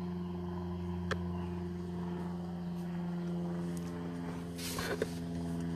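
A steady low machine hum made of several even tones, with a further tone joining about halfway through. A sharp click comes about a second in, and a brief rustle of handling noise near the end.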